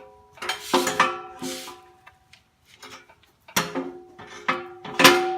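Steel parts of a backhoe bucket quick-on connector knocking together, a few sharp metal clanks near the start and more in the second half, each ringing on at the same pitches.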